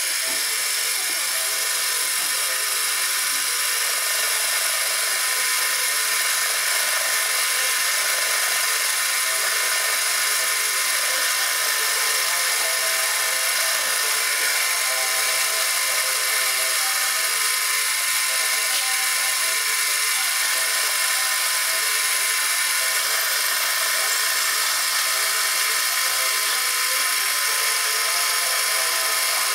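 Mini metal lathe running at a steady speed, its chuck spinning while the turning tool cuts a small metal workpiece: a loud, even whine of motor and gearing with no change in pitch.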